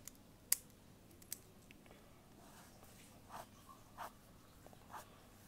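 A few sharp clicks, then three short strokes of a marker pen on notebook paper about a second apart.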